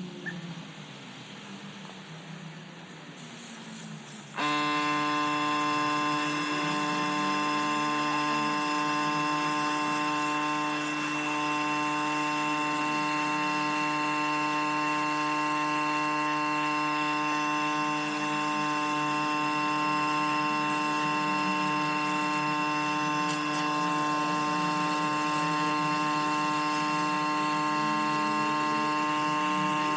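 A power tool's motor starts suddenly about four seconds in and runs at a steady, unchanging pitch, a whine with many overtones.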